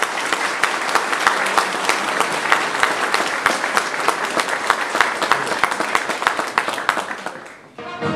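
Audience applauding in a hall, a dense steady clapping that fades out near the end. A brass band starts playing just as it dies away.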